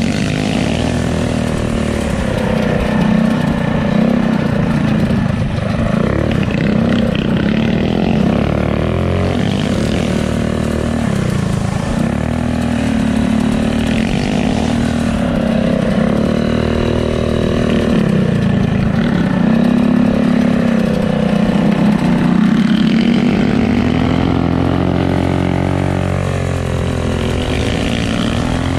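Mini bike's small engine running under load, its pitch rising and falling again and again as the throttle is worked along a dirt trail.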